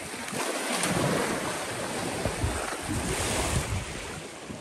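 Small waves washing onto a lake beach, with wind buffeting the microphone in low gusts through the middle.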